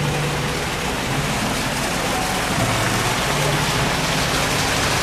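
Water splashing and cascading steadily into the canal from a small waterfall in the rockwork, a little louder in the second half, with a low hum that comes and goes underneath.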